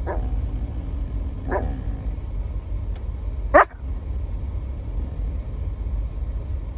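Australian shepherd giving three short barks, the third the loudest, over a steady low hum.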